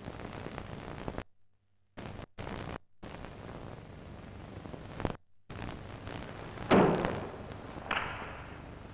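Steady hiss of an old film soundtrack that cuts out to silence a few times. About seven seconds in there is a loud sudden thud with a short echo, and about a second later a smaller one. These are sharp sounds of a karateka moving through the opening of Tekki shodan kata, stepping into horse-riding stance on a wooden floor.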